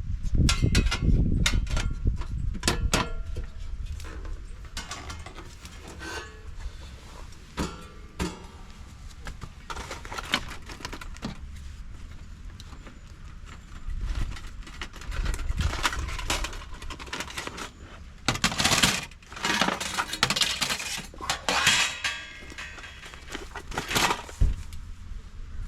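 Gear being handled: scattered metallic clinks and knocks with dull thumps, and bursts of rustling past the middle.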